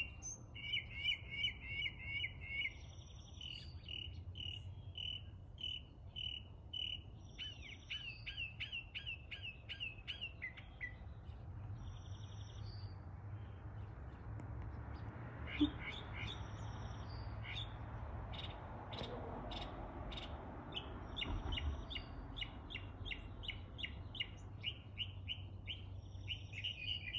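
Northern mockingbird singing: a long run of quick, high chirping notes, each phrase repeated several times before it switches to a new one.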